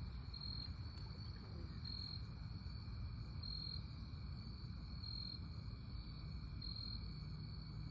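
Night insect chorus of crickets: a steady high trill, with one louder pulse about every one and a half seconds, over a low steady rumble.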